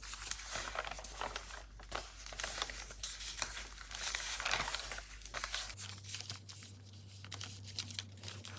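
Paper rustling and crinkling as torn pieces of collage paper are handled and laid onto journal pages, with scattered light taps.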